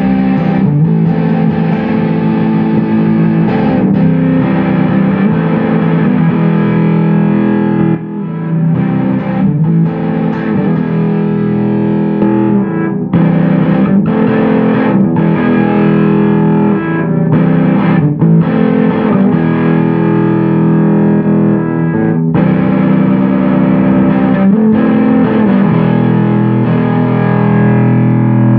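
Electric guitar played through a KHP FX Audio Ratten distortion pedal, with no backing: heavily distorted playing with short breaks every few seconds. Near the end a chord is held and left to ring.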